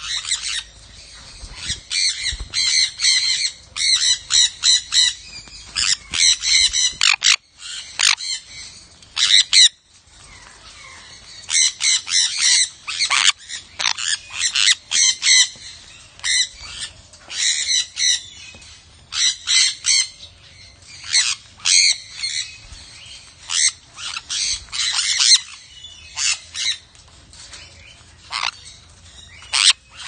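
Sun conures squawking: many short, high-pitched calls in quick runs, with a brief lull about ten seconds in.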